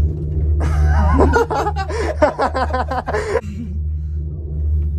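A person laughing in a string of quick bursts for about three seconds, starting about half a second in. Underneath is a steady low rumble inside a ropeway cable car cabin.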